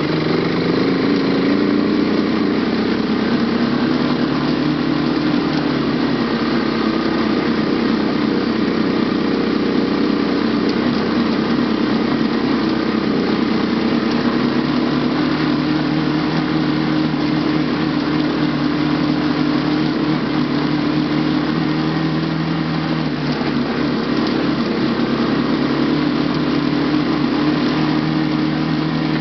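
Quad (ATV) engine running under load on a rough mountain road, its pitch rising in the first second or so and then holding steady.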